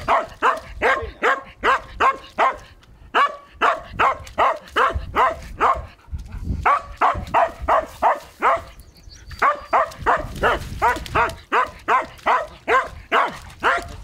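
Hunting dog barking rapidly and persistently at a nutria in the water, about three barks a second in runs with short pauses: the dog is holding the animal at bay for the hunter.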